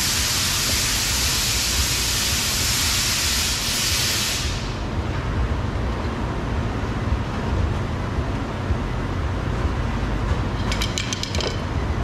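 A loud steady hiss that cuts off suddenly about four and a half seconds in, over a low, steady rumble. Near the end comes a quick run of light clicks.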